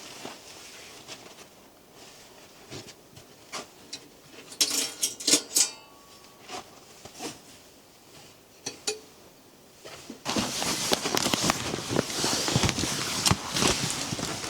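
Handling noises: scattered clicks and knocks, a cluster of louder knocks with a brief ringing clink about five seconds in, then a dense, louder run of crunching and rustling from about ten seconds in.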